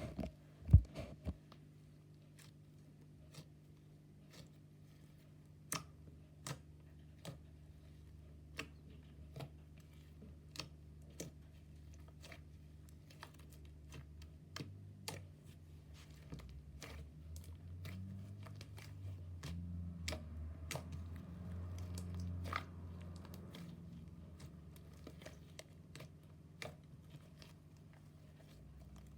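Slime being pressed and worked by hand, giving scattered small clicks and pops, roughly one or two a second. A louder click comes about a second in.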